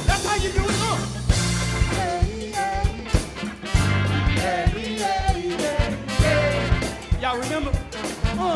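Live band music: drums and bass keep a steady beat while a voice sings a gliding, wordless melodic line over them.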